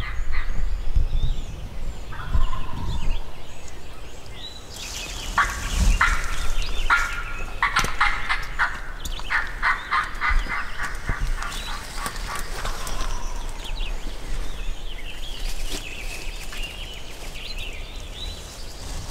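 Wild turkey gobbler gobbling, rapid rattling calls midway through, answering the hunters. Songbirds chirp faintly around it.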